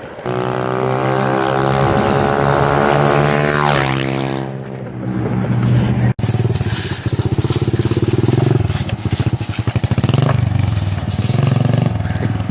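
125 cc pit bike engine running at high revs, its pitch dropping as the throttle is rolled off about four seconds in. After a sudden break near the middle, it runs with a rapid firing beat and revs briefly near the end.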